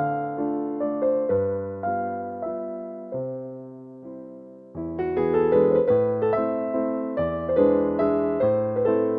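Background music: a gentle piano or electric piano piece with notes struck in a steady pulse, thinning to a held chord that fades for a moment before the fuller playing returns about five seconds in.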